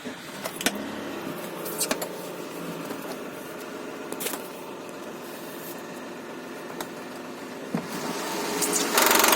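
Mitsubishi Pajero engine running with a rattling clatter, with a few sharper clicks through it, getting much louder near the end. The mechanic suspects the timing belt's hydraulic tensioner.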